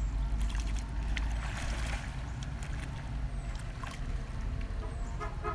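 Pond water sloshing and lapping around a person wading chest-deep and moving his body in the water, with a brief louder swirl of water about one and a half seconds in. A steady low rumble runs underneath.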